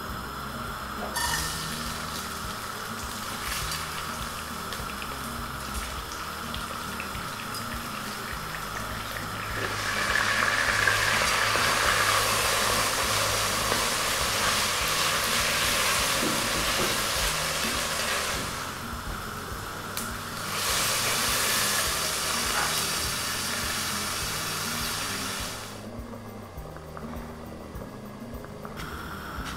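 Hissing, rushing noise of water in a stovetop pot of grain, in two long stretches of about eight and five seconds, over soft background music.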